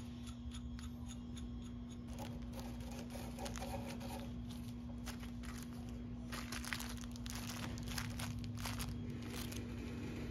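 Plastic parts bag crinkling and rustling in irregular bursts through the second half, after a quick run of light clicks in the first couple of seconds as the handles are fitted on the excavator's control levers. A steady low hum runs underneath.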